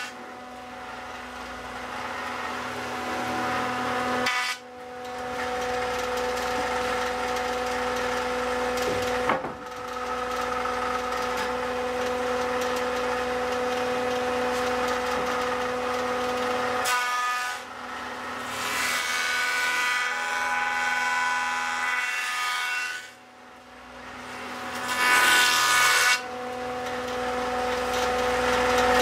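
Jointer running, its motor a steady hum, with rough cutting noise in stretches as timber boards are planed across the cutterhead. The sound breaks off and starts again several times.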